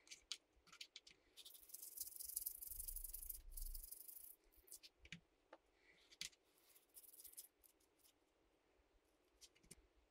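Faint clicks and clinks of small metal differential parts (spider gears, washers, shims and a shaft) being handled on the bench, with a denser burst of rattling from about two to four seconds in.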